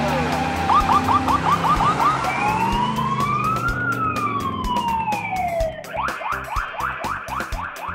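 Police car siren wailing in a chase: quick rapid yelps at first, then one slow wail that rises and falls, then fast yelps again from about six seconds in.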